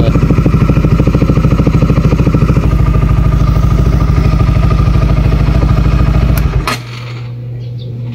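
Motorcycle engine idling with an even pulse, then shut off about six and a half seconds in with a sharp click, leaving a quieter steady low hum.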